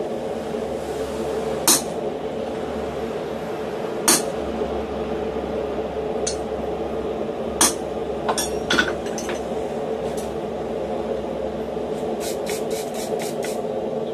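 Three sharp metal-on-metal blows, a couple of seconds apart, as a hand hammer drives a drift through the hot steel hammer-head eye, over a steady hum. Lighter clinks follow, then a quick rattle of clinks near the end as the tools and tongs are handled on the steel block.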